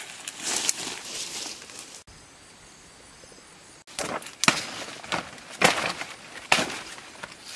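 Rustling of leaves and weeds, then a large banana leaf being pulled and torn, making several sharp crackling rustles in the second half.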